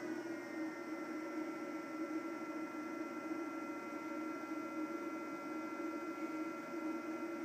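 eFuel PSU30ADE power supply running with a steady hum and a high whining tone, which drops slightly in pitch at the very start and then holds.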